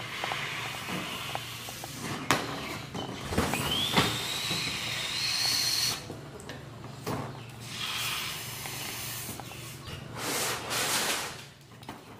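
Breath blown into a rubber balloon in long hissing puffs, one after another. A high whistle rises in pitch about three and a half seconds in and holds for a couple of seconds.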